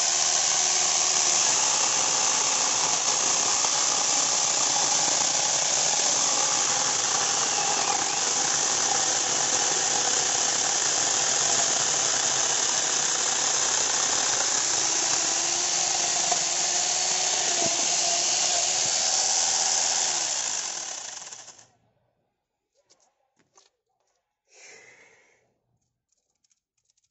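Electric angle grinder fitted with an 11.5-inch chainsaw bar attachment, running and sawing through a log: a loud, steady, high-pitched whine with chain rattle. About 21 seconds in it is switched off and winds down quickly.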